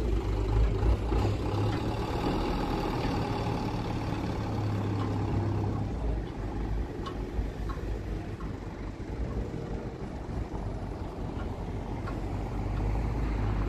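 A vehicle engine running steadily at idle, a low even rumble, with a few faint clicks.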